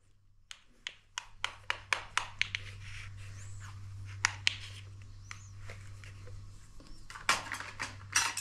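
Knife cutting a homemade cake on a plate, clicking against the plate in a quick run of taps about four a second, then in scattered clicks, with a denser clatter near the end. A steady low hum runs underneath.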